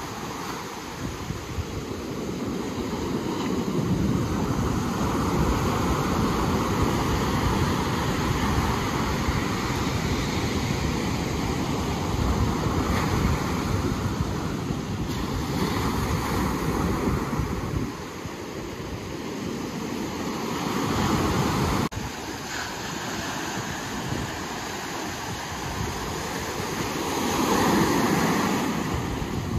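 Ocean surf washing in, swelling and easing in waves, with wind buffeting the microphone.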